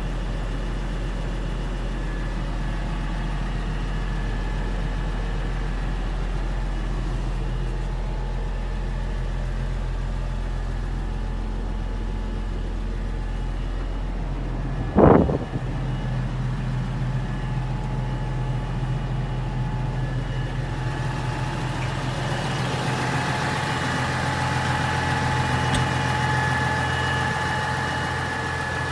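2013 Massey Ferguson 6465 Dyna-6 tractor's diesel engine idling steadily in neutral, heard first inside the cab and then from outside, where it sounds brighter. One loud thump about halfway through.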